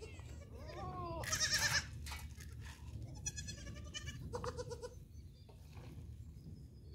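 Goats bleating several times, the loudest call about a second and a half in, over a low steady background rumble.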